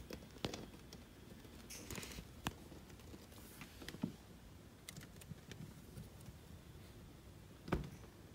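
Faint, scattered small clicks and rustles, with one louder knock about three-quarters of the way through.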